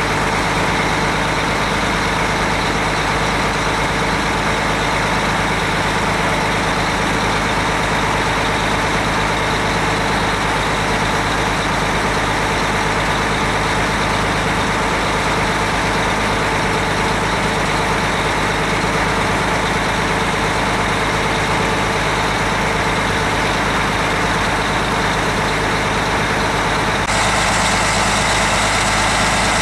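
Fire truck engines running steadily as a line of emergency vehicles rolls slowly by. Near the end the sound grows brighter as a fire engine passes close.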